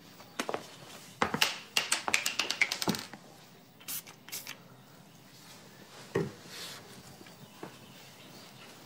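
A quick run of light clicks and taps about a second in, then a few scattered soft knocks in a quiet small room.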